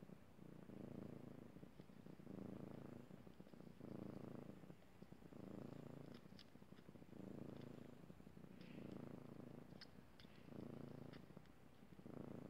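A mother cat purring softly and steadily with her newborn kittens at her belly. The purr swells and fades with each breath, about every one and a half seconds.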